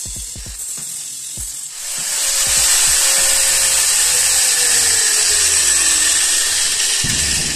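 Angle grinder cleaning down welds on a steel square-tube frame, with a steady hiss that gets much louder about two seconds in and a faint tone that slowly falls in pitch. Background music with a beat runs underneath.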